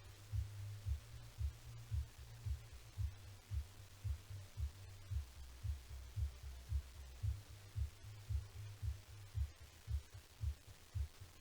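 Heartbeat sound effect: deep low thumps repeating about two to three times a second over a steady low hum.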